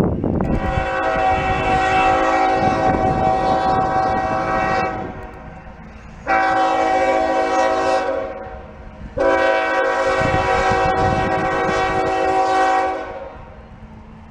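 A CSX GE ES44AH locomotive's air horn sounding a chord in three blasts: a long one of about four seconds, a short one of about two seconds, then another long one, over the low rumble of the train.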